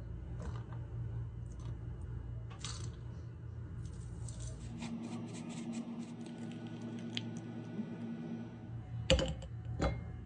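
Fork mashing crumbled white cheese with herbs against a ceramic bowl, a run of quick clicks and scrapes, over a steady low hum. Two sharp knocks near the end.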